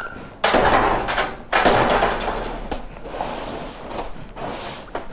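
Metal grille gate being pushed open by hand: a brief squeak, then two sudden bursts of scraping and rattling about a second apart, the second trailing off over a couple of seconds.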